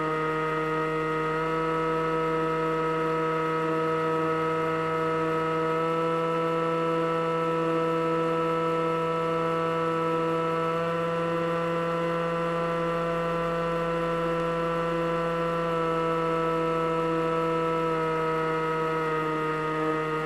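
Electric motor and propeller of an FPV model plane running steadily as a droning whine. The pitch shifts slightly a few times as the throttle changes.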